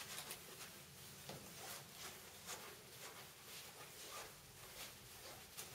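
Faint, irregular light scuffs and rubs, a few a second: a lint-free rag wiping an acrylic sheet clean.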